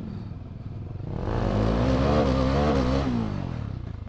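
Bajaj Dominar's single-cylinder engine accelerating on a dirt track: the revs climb about a second in, waver as the throttle works, and ease off near the end, with a rush of wind and tyre noise.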